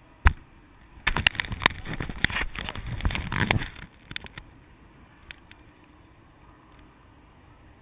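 Handling noise from a wearable action camera being moved: a sharp click, then a few seconds of close rubbing and knocking on the housing that stops about four seconds in, leaving only a few faint ticks.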